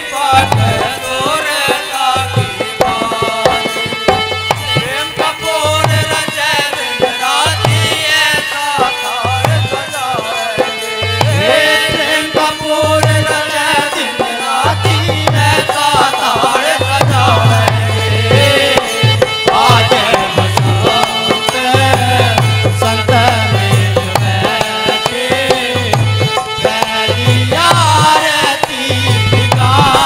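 Indian devotional music with hand drums, tabla-like, in a steady rhythm under a wavering melody line.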